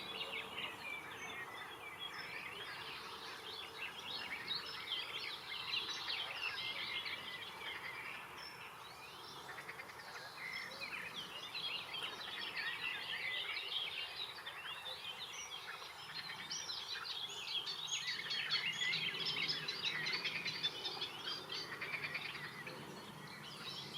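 Many small birds chirping and singing together, a dense chorus of short high calls over a faint, steady background noise; the chorus thins briefly about a third of the way in and is fullest near the end.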